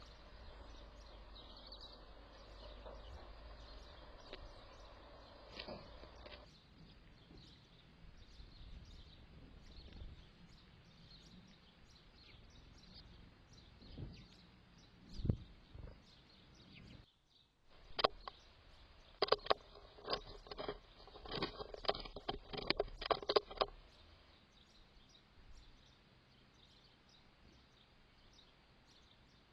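Outdoor garden background noise with faint bird calls, and a run of sharp clicks and taps for several seconds a little past the middle.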